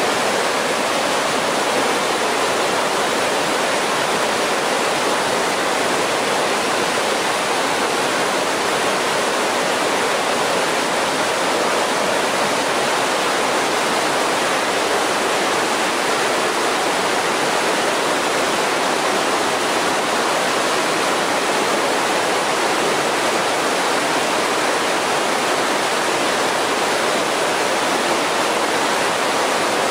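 Mountain creek rushing over boulders in whitewater rapids: a steady, even rush of water.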